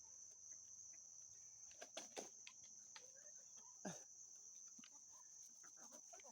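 Faint, steady high-pitched trill of crickets, with scattered soft clicks and a brief low sound about four seconds in.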